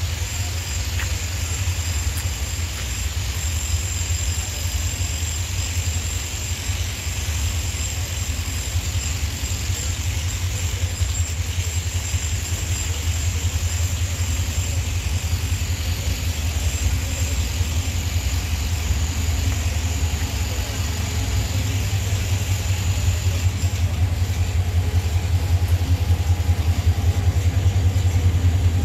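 Hyundai Rotem diesel-electric locomotive's engine running with a steady low rumble as it creeps closer while shunting, growing gradually louder toward the end.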